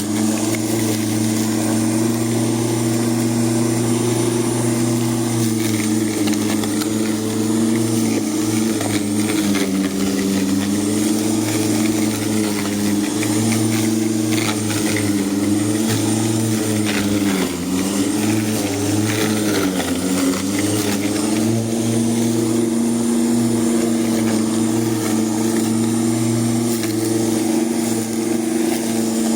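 Ozito lawn mower running steadily while cutting grass, its pitch wavering and dipping briefly a little past halfway through.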